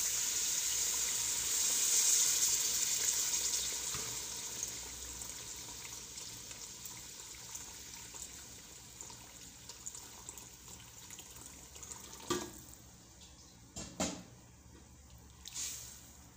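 Water poured from a kettle into a hot pot of fried rice and chicken, splashing and hissing as it hits the hot oil, with the hiss fading away over several seconds. It is the cooking water going in over the browned rice. Near the end, a few knocks of a wooden spoon against the pot as the mix is stirred.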